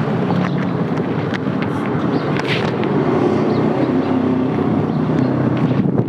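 Street noise with wind buffeting the microphone: a steady rough rumble of traffic and wind, with scattered small clicks.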